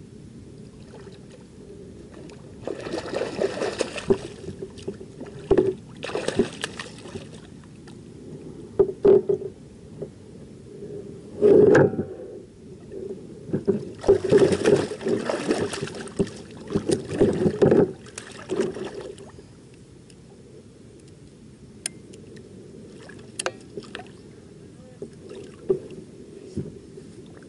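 A hooked catfish thrashing at the surface beside a kayak: bursts of splashing and sloshing water, the longest about halfway through, then a few sharp clicks near the end as the fish is brought to hand.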